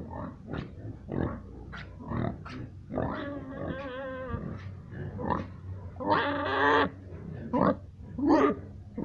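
Pigs grunting over and over in short bursts, with two longer, wavering squeals: one about three seconds in and a louder one about six seconds in.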